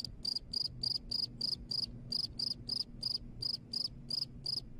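Crickets chirping in a steady rhythm of short, high chirps, about four a second, over a faint low hum.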